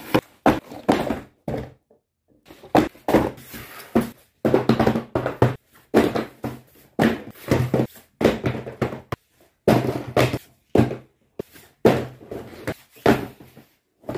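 Quick-cut series of handling noises from toys and their packaging: thunks, taps and knocks, some with a low steady hum under them, each snippet breaking off suddenly into dead silence.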